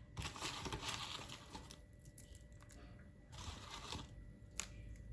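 Crispy fried shallots being sprinkled, a dry rustling and crinkling in two short bursts, with a light click near the end.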